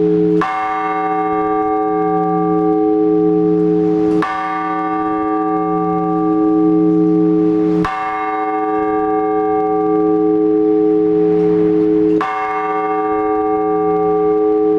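A large Orthodox church bell tolling slowly: four even strokes about four seconds apart, each ringing on with a deep, long hum into the next. It is the slow single-bell ringing that calls the faithful to the all-night vigil.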